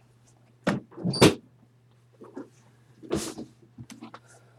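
A room door being handled and shut, several sudden knocks and bumps. The loudest come about a second in, with another about three seconds in.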